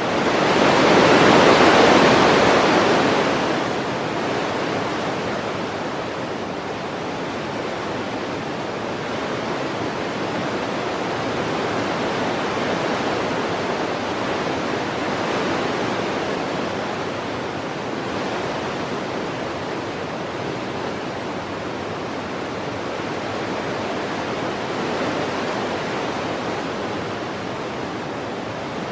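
Wind blowing steadily as a rushing noise. A strong gust in the first three seconds settles into a steady blow that swells and eases slowly every few seconds.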